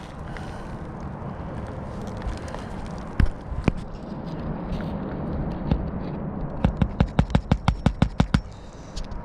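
Hammer driving a roofing nail through an asphalt shingle: a few single knocks, then a quick run of about a dozen sharp taps lasting under two seconds, over a steady background hiss.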